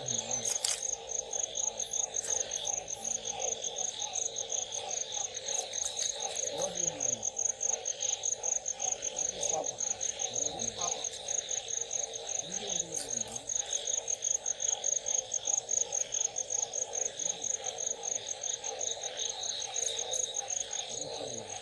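Night chorus of crickets and frogs: a steady high cricket trill over a dense, rapidly pulsing lower chorus.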